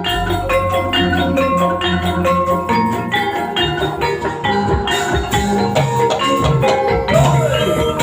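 Javanese gamelan music: metal-keyed instruments play a quick run of struck notes over a low drum, with a wavering melody line coming in near the end.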